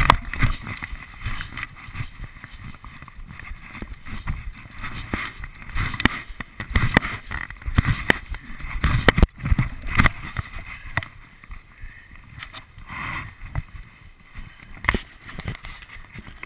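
Wind buffeting and irregular thumps and knocks picked up by a chest-mounted GoPro as the wearer bounces on a trampoline. The sound eases off somewhat in the last few seconds as the bouncing settles.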